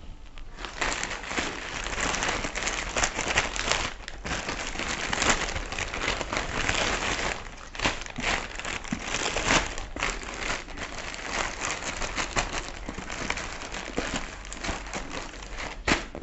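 Plastic courier packaging crinkling and crackling as a book is unwrapped by hand, starting about half a second in and going on with short pauses.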